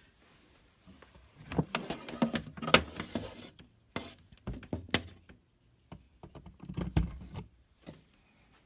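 Handling noises as a heat press's power cord and plug are worked at a wall outlet: scattered clicks and knocks with rubbing and rustling, sharpest about a third of the way in and again near the end. The press itself gives no hum or beep; it is dead and won't power on.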